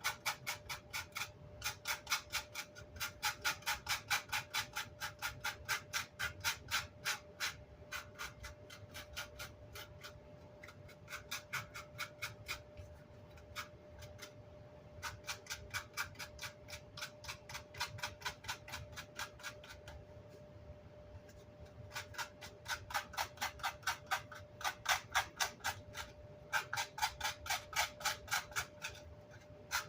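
Rapid back-and-forth scrubbing on Vox AC30 amplifier grill cloth, about four or five strokes a second, in several runs that ease off and pick up again, over a faint steady tone.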